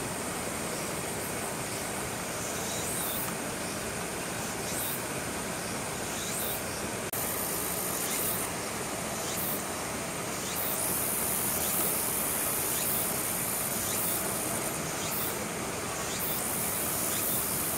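Steady hiss of hard rain, with insects calling in short high pulses about once a second over a thin, steady high whine.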